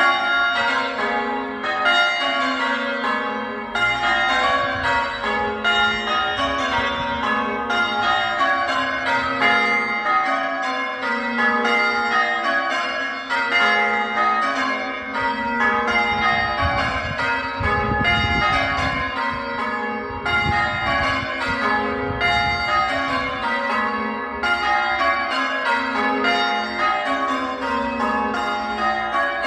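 Church tower bells being change rung: a continuous, even stream of bell strikes in shifting order, with no pause.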